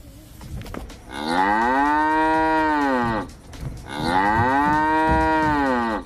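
Cow mooing twice: two long moos of about two seconds each, the first starting about a second in. The pitch of each rises and then falls.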